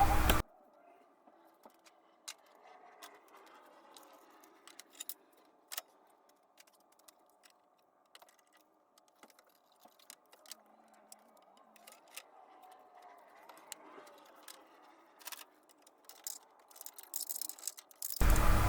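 Sparse, faint clicks and clinks of small metal parts being handled, as when a timing chain tensioner is put back together by hand, over a very quiet background. A louder steady sound comes in just before the end.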